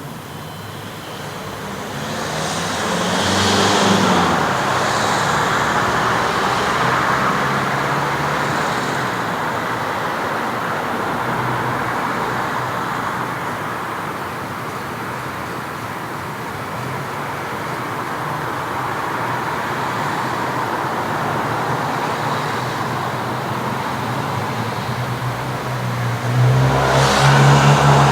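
City street traffic: cars passing one after another over a steady background of road noise. One car swells past a few seconds in, and a louder vehicle with a low engine drone passes near the end.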